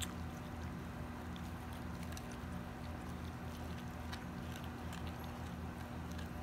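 Dog chewing a raw whole lake herring held to its mouth, with a scattering of faint short crunches as its teeth work the fish. A steady low hum runs underneath.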